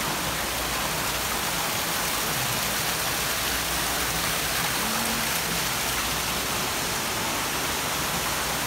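Waterfall pouring down rocks and splashing into a pool, a steady rushing hiss.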